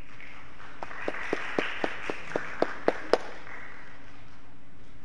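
Light applause from a small audience, with one person's claps standing out: about four sharp claps a second for a couple of seconds, getting louder, then stopping.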